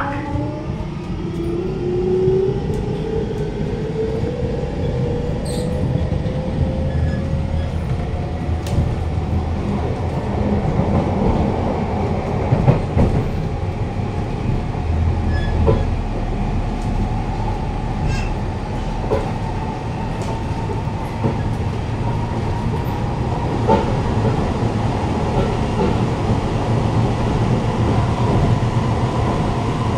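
Siemens C651 metro train heard from inside the car as it pulls away: the traction motor whine rises in pitch over the first several seconds, then settles into steady running noise with scattered knocks and clicks. The car's suspension is reported to be badly worn, making it shake with odd noises.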